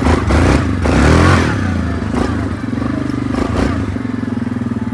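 Yamaha Grizzly 700 ATV's single-cylinder four-stroke engine, breathing through a custom aftermarket exhaust tip, revving up hard as the machine pulls away, then running on more steadily under way. The exhaust note is deep and louder than stock, though not harsh.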